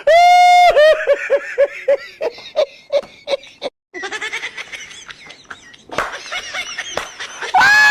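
Loud, high-pitched laughter: a long drawn-out shriek, then quick 'ha-ha-ha' bursts about four a second. After a brief cut come softer giggles, and the same long shriek comes again near the end.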